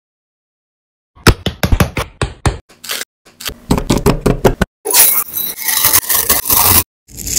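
Kitchen clatter: a quick run of sharp knocks and clinks from utensils and cookware, then about two seconds of scraping, and one more short clatter near the end.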